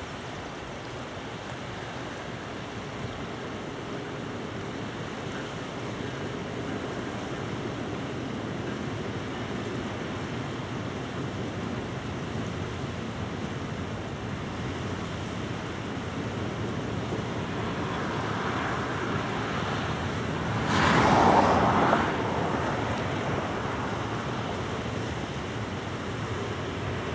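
Diesel freight locomotives hauling a loaded coal train, a steady rumble that slowly grows louder as the train approaches. A brief, louder rush comes about three-quarters of the way through.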